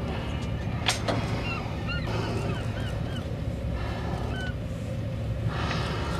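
A boat's engine runs with a steady low rumble while birds call in many short, rising-and-falling chirps. There is a sharp click about a second in, and two brief rushes of hissing noise, one at about two seconds and one near the end.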